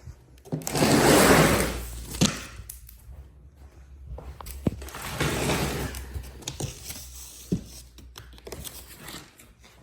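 Cardboard shipping box being opened: two long scraping, tearing noises of cardboard and packing, with a few sharp knocks in between.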